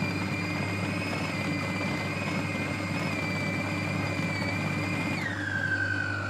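Siemens food processor motor running steadily as it grinds raw pork into a thick paste, with a whining hum. About five seconds in, the whine drops in pitch.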